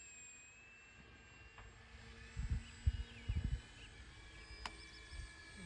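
Faint high whine of an RC airplane's electric motor flying overhead, its pitch shifting slightly with throttle. Wind buffets the microphone a few times in the middle, and there is a single sharp click near the end.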